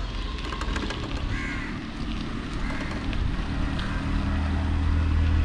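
Wind and road rumble on the microphone of a moving bicycle, a low steady rumble that grows louder near the end. Crows caw briefly about a second and a half in.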